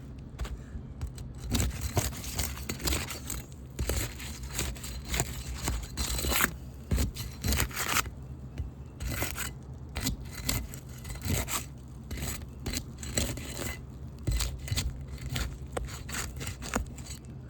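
Asphalt three-tab roof shingles being worked loose: irregular, repeated scraping and crackling strokes.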